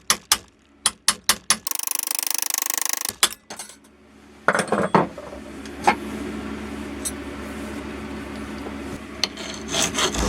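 Hammer driving a cold chisel in a quick run of sharp metallic blows, cutting a strip from an old hacksaw blade of thin spring steel, followed by a harsh buzzing for about a second and a half. Then a few quieter knocks over a steady background, and a file beginning to rasp on the hard steel near the end.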